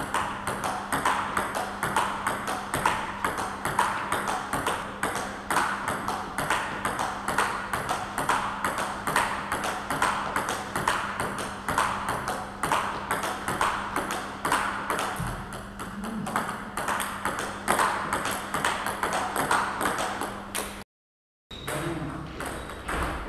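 Table tennis rally: the ball clicking off the bats and bouncing on the table, about two to three sharp clicks a second in a steady back-and-forth. The clicking breaks off briefly near the end, then resumes.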